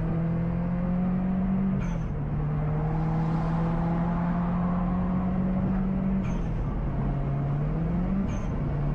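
Car engine running steadily, heard from inside the cabin. Its note drops in pitch about two seconds in and again about six seconds in, then climbs and drops once more near the end, with a faint click at each drop.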